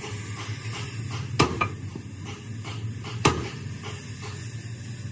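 Sharp metal-on-metal clanks, a quick pair about a second and a half in and one more about two seconds later, over a steady low hum and hiss.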